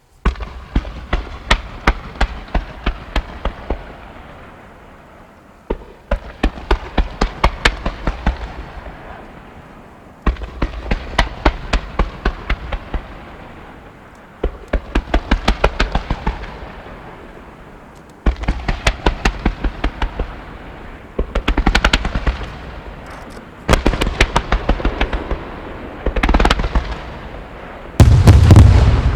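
Wide starmine fireworks: volley after volley of shells fired in quick succession, each volley a rapid run of sharp bangs several times a second that fades over three or four seconds before the next begins. The last volley, near the end, is the loudest, with a deep boom.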